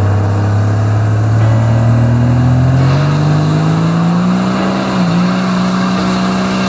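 12-valve Cummins diesel in a 1996 truck revving up: the engine note climbs steadily over about four seconds and is held at high rpm, with a brief dip about five seconds in, then stops abruptly at the end.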